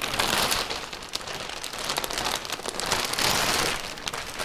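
Packaging being handled: a dense crackling and rustling of plastic wrap and cardboard as a boxed bike is unpacked, swelling and easing in waves.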